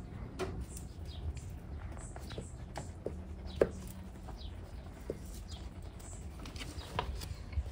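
Small birds chirping outside, many short falling chirps heard through a window glass. A few short thumps from a cat's tail thumping come through too, the loudest about halfway through and another near the end.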